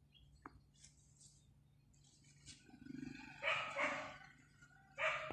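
Rough animal calls: a low rapid rattle about three seconds in, then two loud harsh calls close together and a third near the end.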